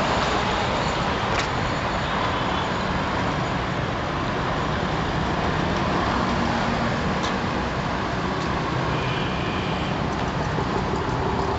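Steady road traffic noise: motorcycles, auto-rickshaws and cars driving past on a wide road.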